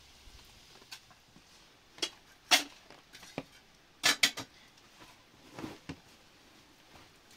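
Hard objects knocking and clinking together in a loose series of sharp single knocks, the loudest about two and a half seconds in and a quick pair just after four seconds.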